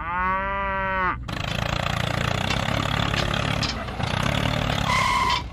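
A drawn-out, rising-then-falling voice exclamation for about a second, then a small engine running with a rough, uneven noise; a short high beep sounds just before the end.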